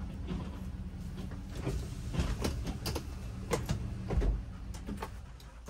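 Low rumble of a Ford motorhome's engine and drivetrain heard from inside the cab while it rolls slowly, with a string of sharp clicks and knocks from about two seconds in, dying down toward the end.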